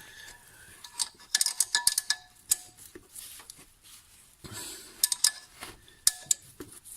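Hand wrench screwing a new M10 camshaft stud into freshly tapped thread in a VAZ 2114 cylinder head: two spells of metallic clicks and clinks with a short ring.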